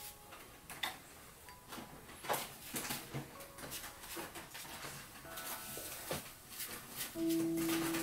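Ink brush dabbing and sweeping across paper in short, scratchy strokes, over sparse, soft background music with a few held notes. A stronger, longer note comes in near the end.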